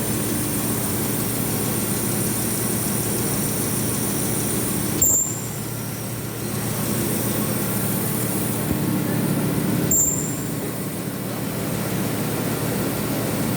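Absorbent cotton making machine running with a steady mechanical drone, with a sharp clack about five seconds in and again about five seconds later.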